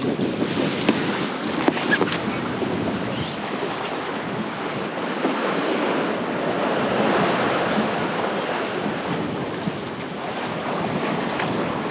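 Water rushing and splashing along a sailboat's hull as it sails through choppy water, with wind buffeting the microphone. A couple of sharp clicks sound in the first two seconds.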